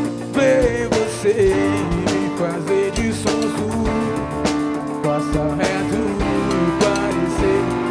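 Live band playing samba rock: electric guitar over drum kit and percussion, with a man singing into a microphone over the band.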